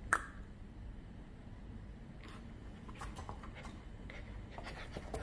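Samoyed puppy's claws and paws tapping and scraping on a hard ledge as it gets up and moves among its toys: a single sharp click at the very start, then a string of short clicks and scratches from about two seconds in.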